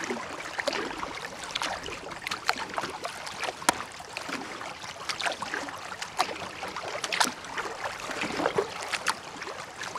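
Water splashing and lapping around a kayak, with irregular small splashes and drips.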